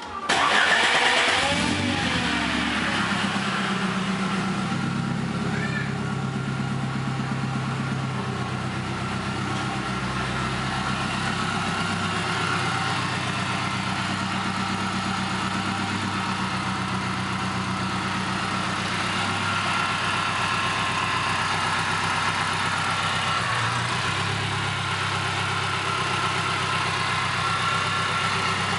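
Chevrolet Chevette DL's four-cylinder engine coming in suddenly, with revs dropping over the first couple of seconds, then idling steadily.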